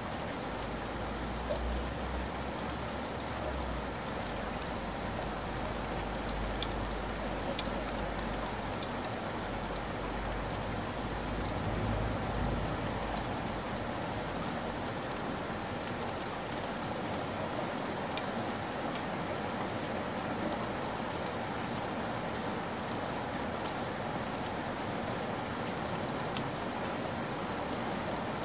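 Steady rain falling: an even hiss with scattered sharp drop ticks. A low rumble sits underneath for roughly the first dozen seconds.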